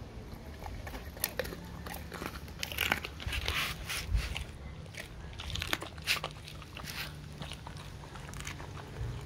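Dog chewing a raw gilt-head bream's head, with irregular wet crunches of the fish's bones, in bunches about three and six seconds in.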